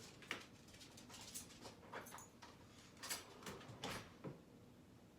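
A few faint, scattered clicks and knocks, with a brief high metallic clink about two seconds in.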